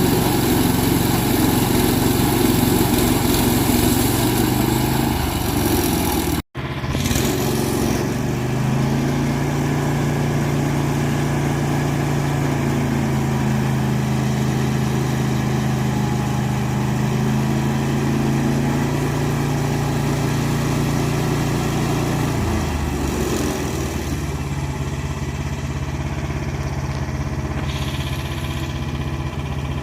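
The small gasoline engine of a Frontier portable bandsaw sawmill running steadily. The sound cuts out for an instant about six seconds in, and the engine's pitch drops a little near the three-quarter mark.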